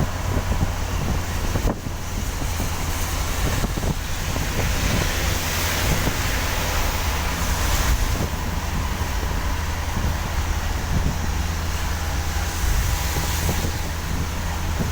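A vehicle driving on a rain-wet road: a steady low rumble from the engine and tyres, with a constant hiss and wind buffeting on the microphone.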